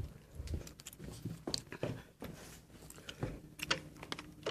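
Scattered small clicks, knocks and rustles of movement and handling, with a faint low rumble under them.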